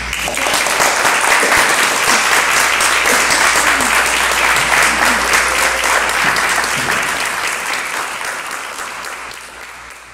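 Theatre audience applauding, a dense steady clapping that fades away toward the end.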